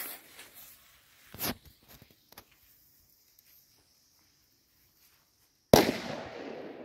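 A lit firecracker's fuse hissing faintly for a few seconds, then the firecracker going off with a sharp, loud bang near the end, followed by a long rolling echo.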